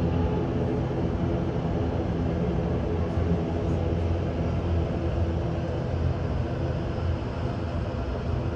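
ATR 72-600's twin Pratt & Whitney PW127 turboprop engines and propellers running at taxi power: a steady drone with a low humming note.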